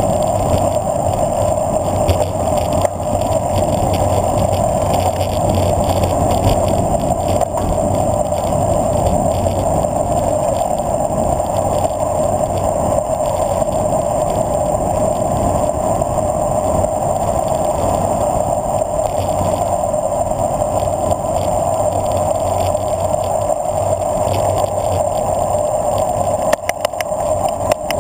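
Steady, loud rush of wind over a handlebar-mounted camera on a road bike descending at speed, with a low rumble of the tyres on the pavement underneath.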